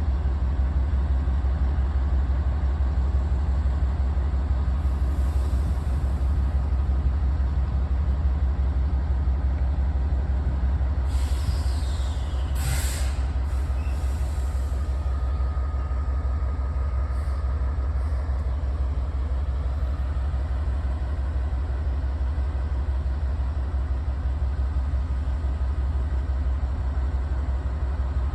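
Steady low rumble of a moving train, with a short sharp hiss near the middle. There is no horn blast.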